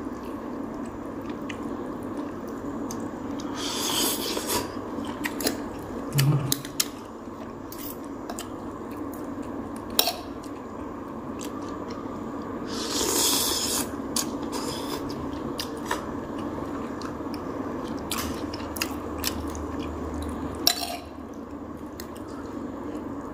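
A person eating: chewing with short crunches now and then, and scattered light clicks of cutlery against a dish or pot.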